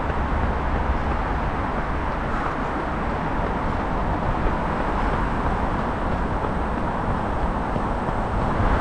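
Steady outdoor background noise with a deep low rumble, with no distinct events.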